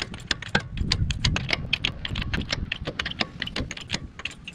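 Fast, uneven metallic clicking and rattling from a hydraulic bottle jack being worked with its steel handle.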